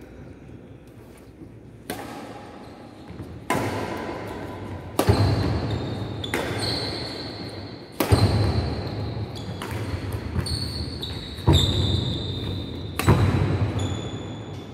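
Badminton rally: rackets striking the shuttlecock roughly every one to two seconds, each hit sharp and echoing through a large hall, with shoe squeaks on the court between the hits.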